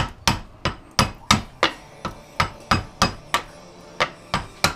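Hammer tapping steadily, about three blows a second, driving a tool down through a small transformer to split it for its copper windings.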